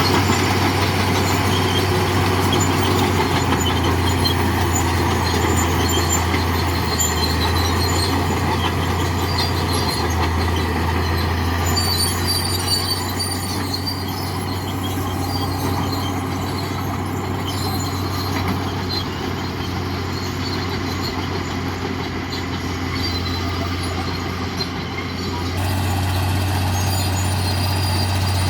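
Crawler bulldozer's diesel engine running steadily, with a constant low hum under a dense mechanical clatter; the sound changes abruptly near the end.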